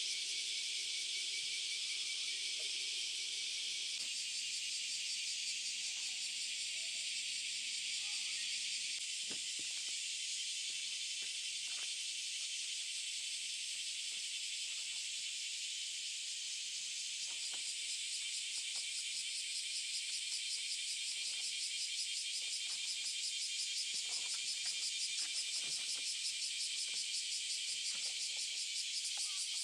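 Insects chirping in a steady, high-pitched chorus that pulses rapidly near the end, with a few faint clicks.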